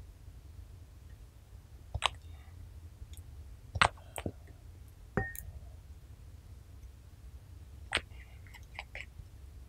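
Sharp plastic clicks and taps from a small glitter-filled cosmetic bottle being handled and its screw cap twisted, a handful of separate clicks at uneven intervals. One click a little past the middle rings briefly.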